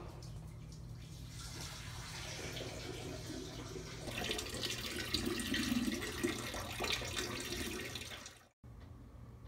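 A stream of urine splashing into a toilet bowl, growing louder about four seconds in and cutting off abruptly near the end.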